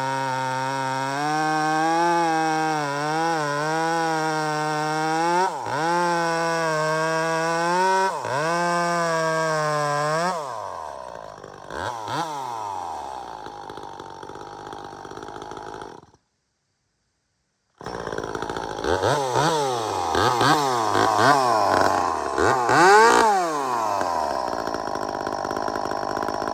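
Two-stroke top-handle chainsaw, just repaired after a pinched fuel line inside the tank, running at high idle with a steady, slightly wavering pitch, then dropping lower about ten seconds in. After a short break it is revved up and down several times and runs cleanly, showing the repair has fixed it.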